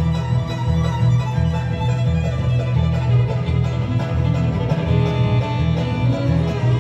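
Live bluegrass band playing: fiddle leads over banjo, acoustic guitar and upright bass, with a steady driving beat.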